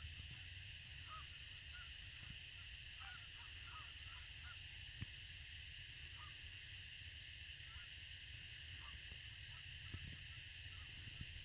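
A distant flock of birds calling in flight: many short, separate calls, thickest in the first half, over a steady high background hiss and a low wind rumble on the microphone.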